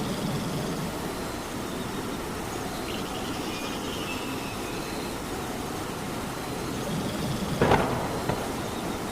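Steady rain, with a single sharp knock about three-quarters of the way through.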